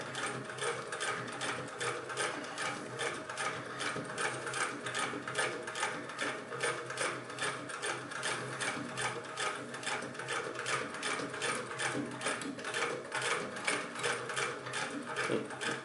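1926 Singer 99 hand-crank sewing machine stitching through two layers of heavy denim, a steady rhythmic clatter of about three to four clicks a second, turning over easily. It stops right at the end.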